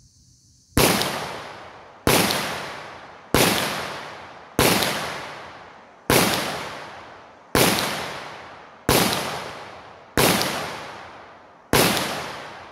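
Double-action centerfire pistol firing nine shots at a steady pace, about one every 1.3 to 1.5 seconds, starting just under a second in. Each sharp crack is followed by an echo that fades over about a second.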